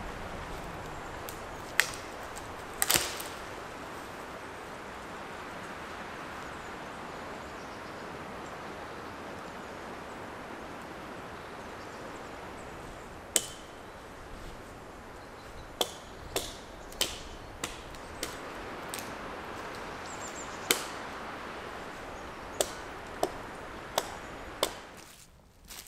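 Dry dead wood cracking and snapping in sharp single cracks over a steady rushing background: a few near the start, one around the middle, then a quick run of them in the second half.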